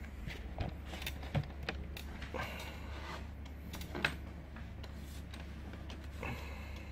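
Faint steady low hum with a few scattered sharp clicks and knocks, the loudest about four seconds in.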